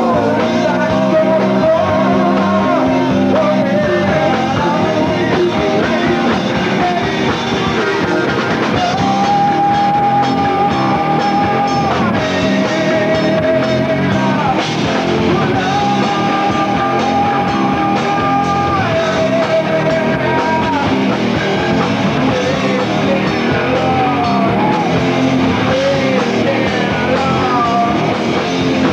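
Rock band playing live on electric guitars and drum kit, with a lead line of long held notes that slide between pitches.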